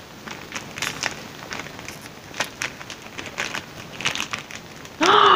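Plastic ice cream wrapper crinkling and crackling in irregular small clicks as it is pulled and twisted to tear it open, with a brief vocal sound about five seconds in.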